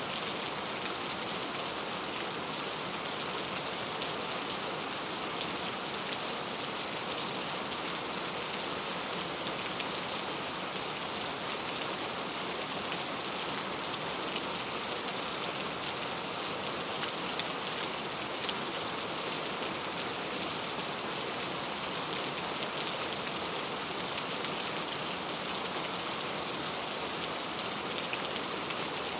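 Heavy rain falling steadily, a dense even hiss with fine patter of drops hitting a surface.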